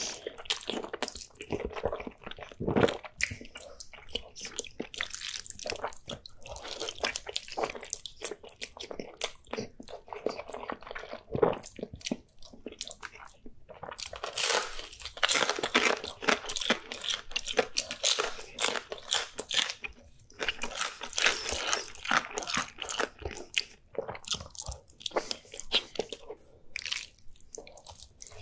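A man eating with his mouth: slurping and chewing thick sauced noodles and biting into pan-fried dumplings. The bites and chews come in a dense run of short sounds with brief pauses.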